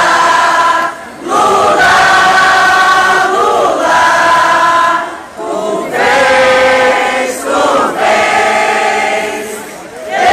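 A crowd of hundreds singing together as a massed choir. They sing long held phrases, with short breaks about a second and five seconds in, and the last phrase fades out near the end.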